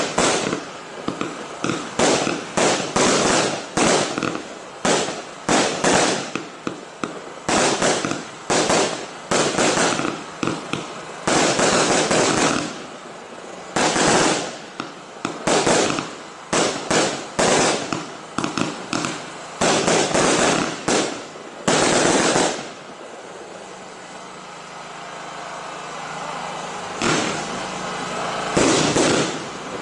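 Ardi Showbox Fascination, a pre-fused single-ignition firework cake, firing: a rapid series of aerial shots bursting with crackle, about one to two a second. For a few seconds past the middle the bursts give way to a softer steady hiss, and then the bursts resume near the end.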